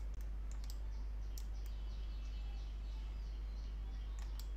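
Computer mouse clicking, a few sharp clicks scattered through, clustered near the start and again near the end, over a steady low electrical hum. Faint high chirps sound in the middle.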